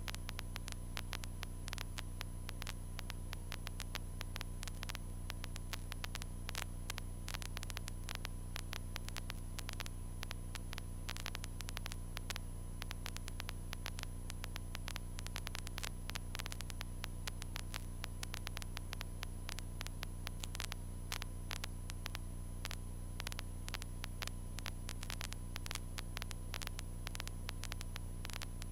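Steady low electrical hum with a thin high tone, flecked with irregular crackling clicks of static, on a light aircraft's intercom audio feed.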